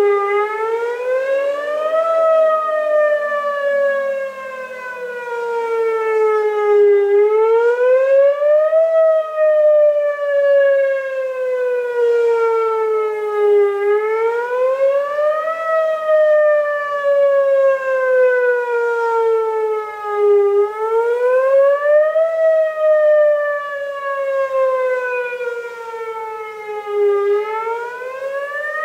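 Outdoor warning siren sounding a monthly test: a wailing tone that rises for about two seconds and sinks for about five, over and over about every seven seconds. A fainter, lower siren tone slides down during the first few seconds.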